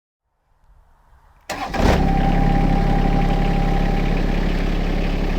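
John Deere X758 lawn tractor's three-cylinder diesel engine starting: a faint lead-in, then it catches suddenly about a second and a half in and settles into a steady idle with a constant hum.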